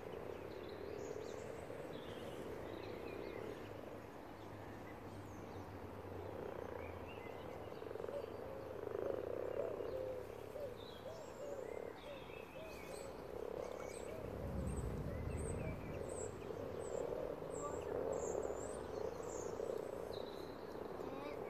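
Many common frogs (Rana temporaria) croaking together in a steady, dense chorus of overlapping low calls: the breeding chorus of a spawning gathering. A brief low rumble comes about two-thirds of the way through.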